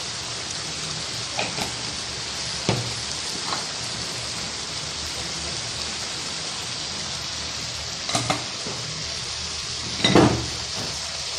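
Chicken pieces and sliced onions sizzling in hot oil in a pan, a steady frying hiss. A few short knocks on the pan break it, the loudest about ten seconds in.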